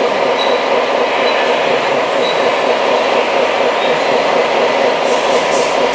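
Radio-controlled model trucks and excavator running: a steady mechanical rolling and gear noise, with a few short hissing pulses near the end.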